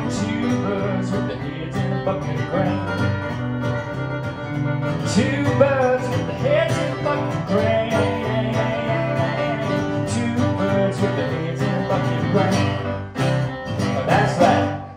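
Live Americana song played on acoustic guitar and electric keyboard, with a man singing over it. The song comes to its end right at the close, the music dropping away suddenly.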